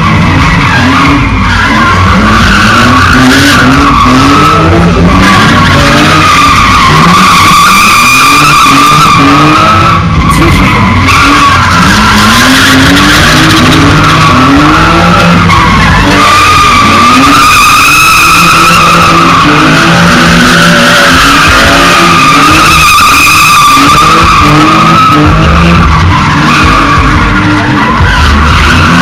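A car's tyres squealing without a break as it spins them and drifts on tarmac, very loud, while its engine revs rise and fall over and over.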